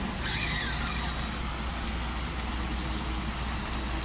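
Steady low outdoor rumble and hiss, like distant road traffic and wind, with a short falling higher-pitched sound near the start.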